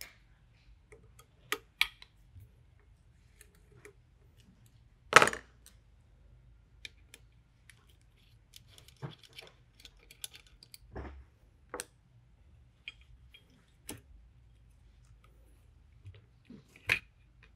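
Scattered clicks and knocks of metal tools and air-rifle parts being handled on a workbench while the FX Maverick's chassis is unscrewed with a hex key and lifted off, with one louder knock about five seconds in and another near the end.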